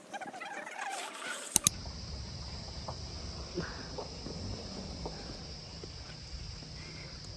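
Steady high-pitched drone of insects over a low outdoor rumble, preceded for the first second and a half by a wavering pitched sound. Two sharp clicks come close together about a second and a half in.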